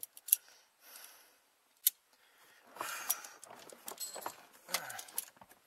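Small metal hand tools and parts being handled and clinking: two sharp clicks, then a couple of seconds of busy jangling and rattling.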